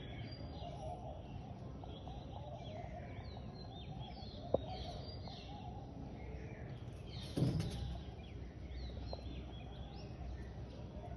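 Many small birds chirping, a steady stream of short falling chirps, over a low background rumble. A sharp click sounds about four and a half seconds in, and a louder thump about seven and a half seconds in.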